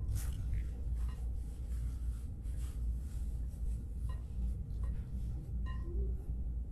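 Steady low room rumble with faint, scattered soft clicks and smacks of someone eating at a table.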